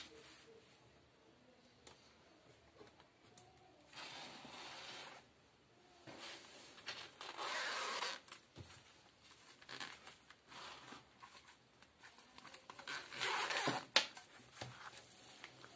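Zipper on a padded fabric bottle bag being pulled open in several separate faint pulls.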